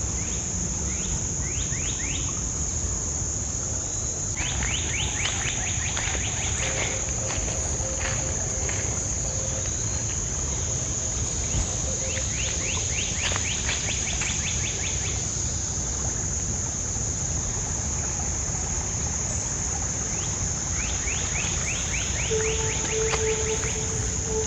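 Insects trilling in a steady high drone, with four spells of rapid ticking trills coming and going, over a low steady rumble.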